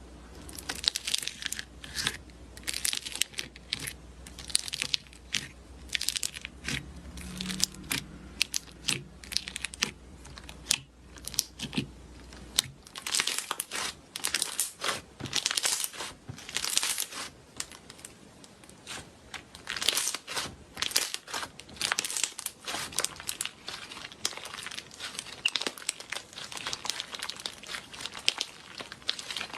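Slime being squeezed and pressed by hand, giving a dense, irregular run of crackling, popping clicks.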